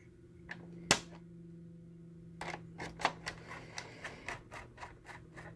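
Small screwdriver driving T10 Torx screws into a projector's bottom cover: a couple of sharp clicks about half a second and a second in, then a run of quick, irregular clicks as the screw is turned down.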